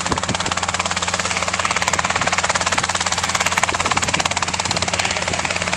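Robinson R22 helicopter running with its rotors turning at a fly-in, the two-blade main rotor giving a fast, even chop over a steady engine hum.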